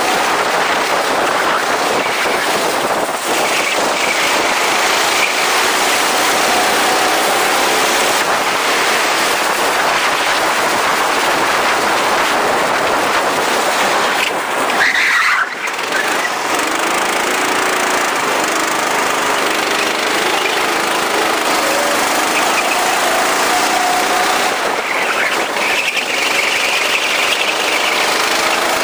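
Go-kart engine revving up and down, largely buried under a loud, steady rush of wind on the microphone. A short squeal comes about halfway through.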